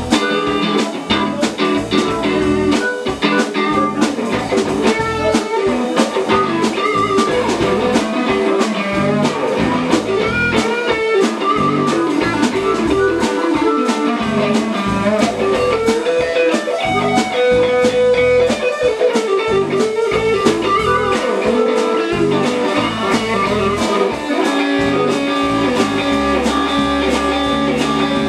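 Live blues-rock band playing an instrumental passage, with electric guitar over drums keeping a steady beat.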